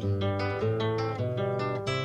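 Music: a plucked acoustic guitar playing a melodic line, a new note struck every quarter to half second.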